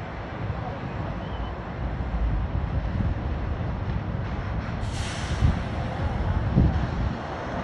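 Steady low rumble of engines and vehicles, with wind buffeting the microphone, and a short burst of hissing air about five seconds in.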